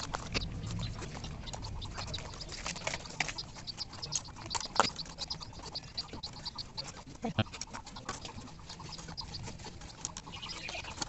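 Thin bamboo sticks clicking and tapping against each other as a plastic binding strip is threaded through them, with a scatter of light, irregular clicks.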